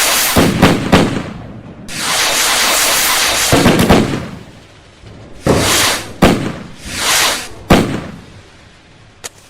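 Fireworks going off: sharp bangs mixed with long hissing, crackling swells. They thin out near the end to one small pop.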